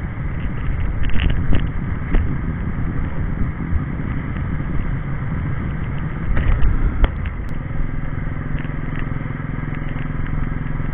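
Royal Enfield Bullet Electra 350's single-cylinder engine running as the motorcycle rides along a road, heard from the rider's position with uneven low rumble and a few clicks. The noise swells louder about six seconds in.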